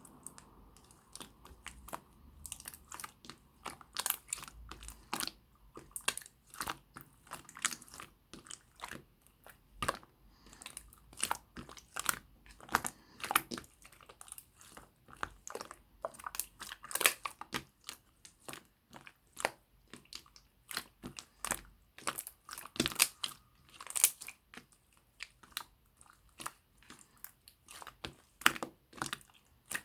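Clear slime with mixed-in add-ins being kneaded and pressed by hand, giving a dense, irregular run of crisp clicks and crunchy pops, several a second.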